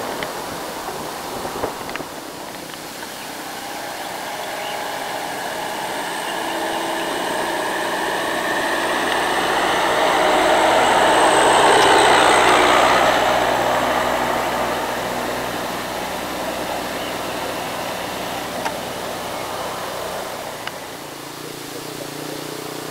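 A micro bus engine running as the bus passes close by. It grows steadily louder, is loudest about twelve seconds in, then fades as it moves away.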